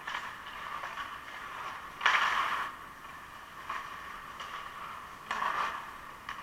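Ice rink sounds during a hockey game: hissing scrapes, such as skate blades on the ice, about two seconds in and again near the end, with a few light clicks between them.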